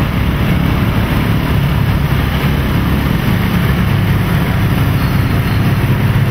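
Steady low drone of a motor vehicle's engine running at low speed, with road and wind noise, heard from on board the vehicle.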